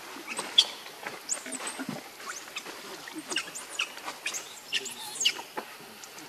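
Baby macaque giving a rapid series of short, high-pitched squeaks, the loudest about half a second in, typical of an infant's distress calls while it is grabbed and pulled by an adult.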